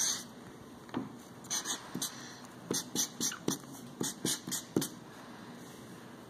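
Black permanent marker drawing on lined paper: a quick run of short strokes between about one and five seconds in, as bicycle wheels and their spokes are drawn.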